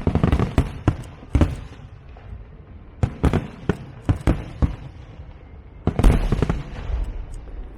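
Fireworks going off in a string of sharp bangs. A few come in quick clusters, with a dense crackling run about six seconds in.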